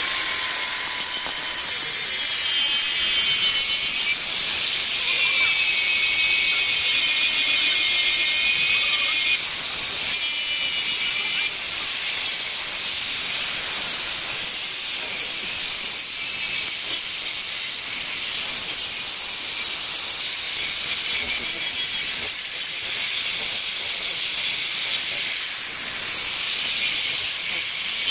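Handheld electric angle grinder with a diamond polishing pad running against the edge of a granite slab: a steady high-pitched hiss and motor whine whose pitch wavers as the pad is pressed along the stone.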